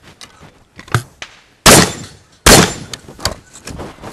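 Two loud blasts of gunfire, under a second apart, each cutting in sharply and ringing off. A smaller knock comes about a second before them.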